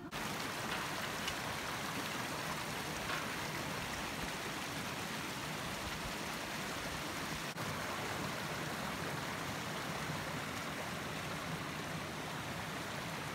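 Mountain stream rushing steadily, an even noise that drops out for a moment about seven and a half seconds in.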